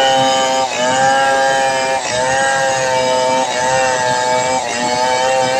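Stihl 070 two-stroke chainsaw running at high revs while ripping lengthwise along a log, its pitch dipping briefly about four times as the chain bogs under load in the cut.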